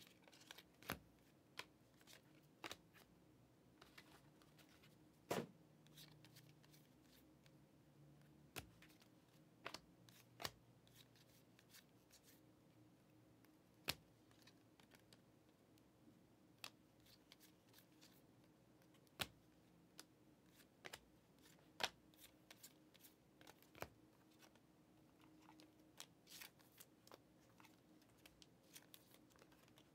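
Football trading cards being flipped and slid through the hands: faint, irregular clicks and snaps of card stock, a few of them sharper.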